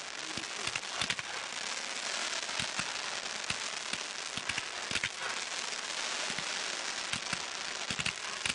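Fireworks: a steady crackling hiss with scattered sharp cracks and pops, fading in at the start.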